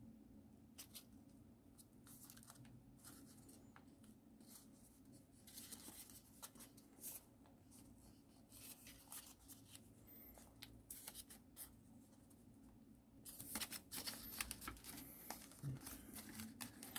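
Faint rustling and crinkling of folded paper as fingers pinch and crease a leg of an origami eagle, with scattered small crackles that grow louder and busier near the end.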